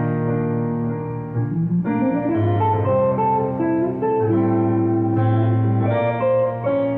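Hollow-body electric guitar playing a melodic line over keyboard chords: a held chord, then a quick rising run of notes about two seconds in, leading into a slow single-note melody.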